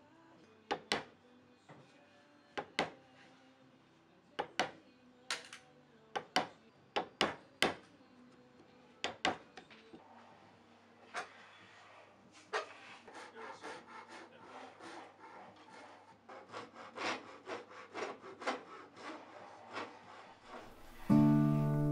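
A series of sharp wooden knocks, mostly in pairs, then a Japanese pull saw cutting a board held upright in a vise, with quick, even strokes about two to three a second. A strummed acoustic guitar comes in just before the end.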